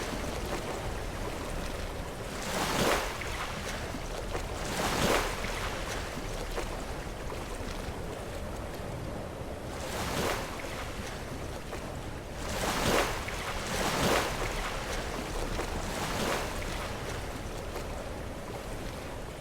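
Sea waves crashing into rocks: about six separate splashes at uneven intervals over a steady low wash of surf.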